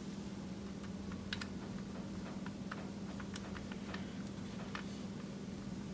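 Faint, scattered light clicks and ticks of small metal lock parts being handled and fitted, over a steady low hum.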